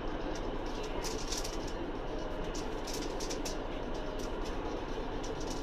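Steady rumble of a train carriage heard from inside, with frequent short sharp clicks and rattles over it.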